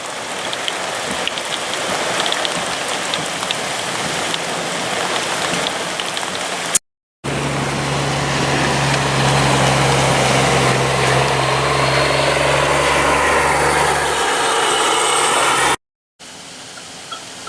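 Steady hiss of rain, then, after a cut, a vehicle engine running with a low, steady hum under the rain noise, which stops about two seconds before the end.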